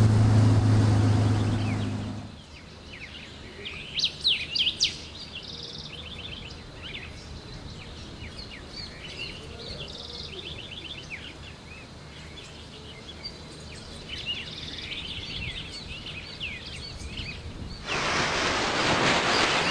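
Music fades out over the first two seconds. Then small birds chirp and call again and again against a faint background hiss. Near the end a loud rushing noise sweeps in.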